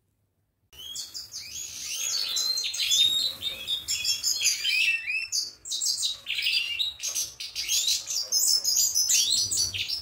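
Goldfinches chirping and twittering in a fast, dense stream of high notes. It starts suddenly about a second in, after near silence.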